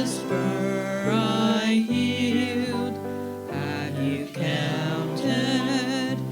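Slow church music: long held notes that waver, over steady low notes, in phrases with short breaks between them.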